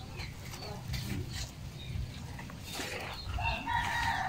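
A domestic animal gives a drawn-out call starting about three seconds in, over small birds chirping and brief rustles of feathers being pulled from a scalded chicken by hand.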